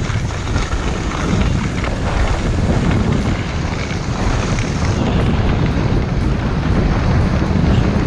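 Steady rushing wind buffeting the microphone, loud and even throughout, heaviest at the bottom.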